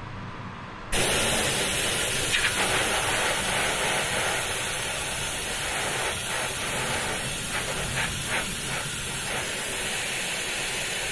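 Oil extractor ('sucker') switched on about a second in: a sudden, steady loud hiss of rushing air as it draws at the engine sump, with a few faint crackles along the way.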